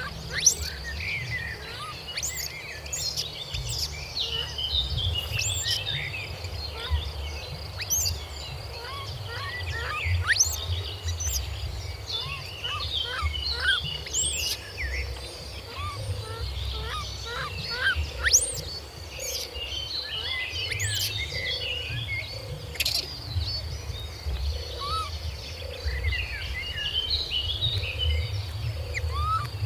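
Birds chirping and whistling in quick, scattered calls over a steady high insect drone and a low rumble.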